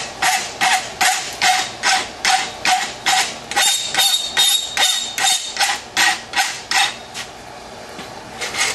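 Steel rasp scraping back and forth across the forged steel boss of a tong half held in a vise, in even strokes about three a second. It pauses briefly near the end, then starts again. This is the boss being rounded and flattened so the jaw will not catch before the tongs are riveted.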